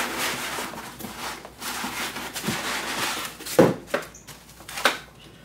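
Cardboard box and foam packing rustling and squeaking as a boxed appliance is lifted out, then a few sharp knocks from about three and a half seconds in.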